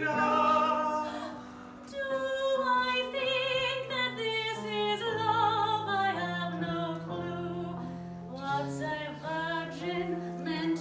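A woman singing a musical-theatre song in an operatic style with strong vibrato, over backing music of held low notes, with a short break about two seconds in.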